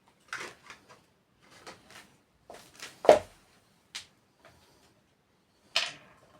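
Small objects being handled and set down on a work surface: a string of short knocks and clatters, with the loudest knock about three seconds in and another sharp one near the end.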